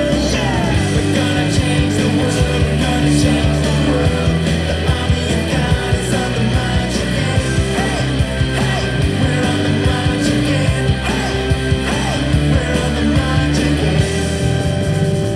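Worship song: singing over music with a steady beat.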